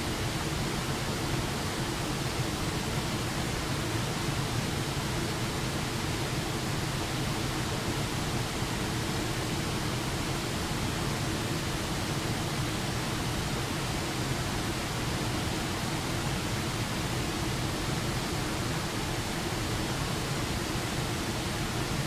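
A low waterfall pouring over a rock ledge into a shallow, rocky creek: a steady, unbroken rush of falling and splashing water.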